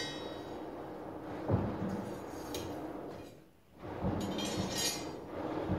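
Great forge bellows pumped by an overhead hand lever: the lever and bellows squeak on the strokes, with dull wooden knocks in between, about one stroke every two seconds, over a steady hiss.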